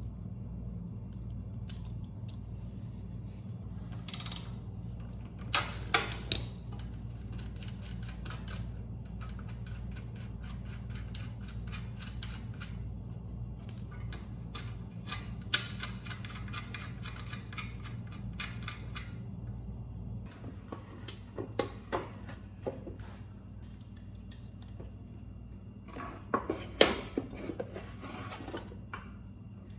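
Metal hand tools and small metal generator parts clicking and clinking during disassembly, with quick runs of clicks and a few louder knocks, over a steady low hum.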